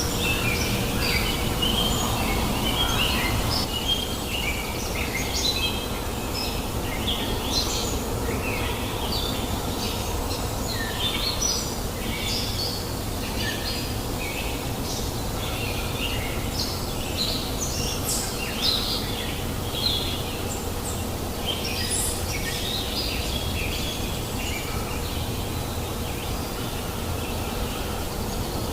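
Small birds chirping and calling in short, scattered notes, over the steady rush of a river.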